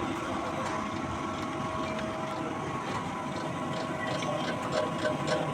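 Wire EDM machine running with a steady hum and a steady high whine, with a few light clicks in the second half.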